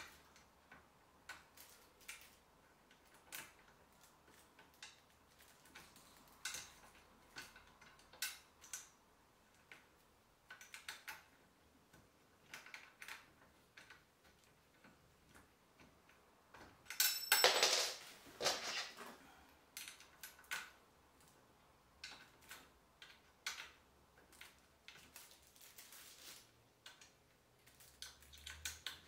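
Clear plastic wrapping being handled and pulled off a folding wagon's metal frame: scattered crinkles and small clicks, with a louder burst of rustling about seventeen seconds in.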